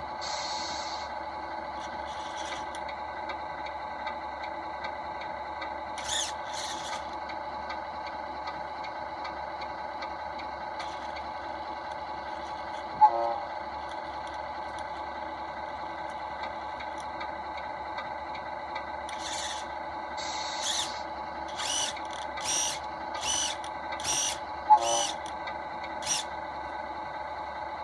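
Radio-control steering servo in a Tamiya flatbed semi-trailer model, whirring in short bursts as it moves the steering, once and then several times in quick succession near the end, over a steady electrical hum. Two sharp clicks are also heard.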